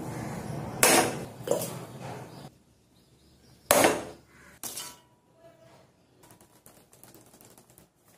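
Aluminium drink cans set down on a tabletop: four short, sharp knocks spread over several seconds.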